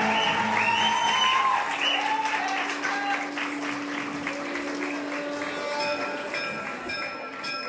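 Audience clapping and cheering with whoops over recorded dance music; the clapping dies away about five seconds in, leaving the music's held notes.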